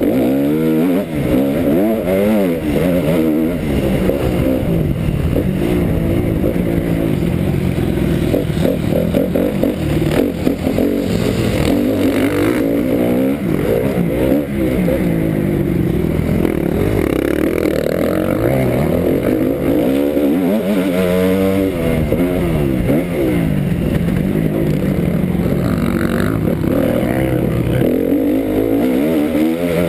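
Honda 250 four-stroke motocross bike's single-cylinder engine, heard from on board as it is ridden hard round a dirt track. The engine note rises and falls again and again as the throttle is opened and shut through the corners and straights.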